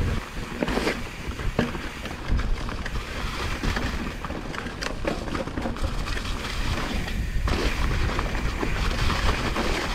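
Mountain bike riding over a rocky trail: tyres and frame knocking and rattling over rocks, with a steady low rumble of wind on the microphone.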